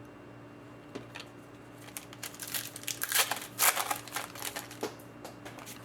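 Trading cards and their plastic or foil packaging being handled: a light click about a second in, then a run of crinkling and rustling for about three seconds.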